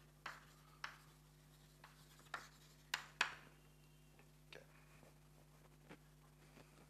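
Chalk tapping and scraping on a blackboard as a few words are written: a handful of sharp taps over the first three seconds or so. After that only a few faint knocks over a low room hum.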